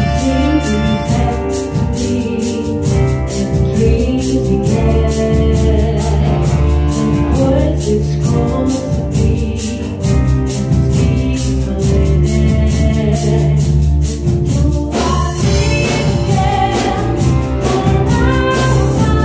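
Live rehearsal music: a woman's voice singing through a microphone over electronic keyboards, with a steady ticking beat.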